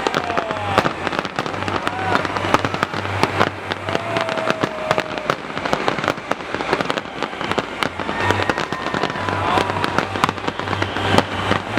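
A large aerial fireworks display going off without pause: a dense barrage of bangs and crackles, with crowd voices calling out now and then.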